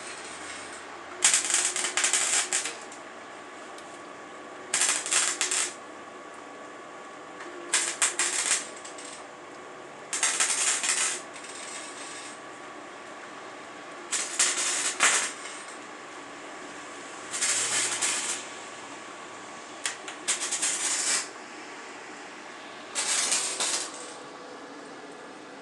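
A welder laying spot welds around a car roof skin: eight separate crackling bursts about a second long, one every three seconds or so, with a steady hum between them.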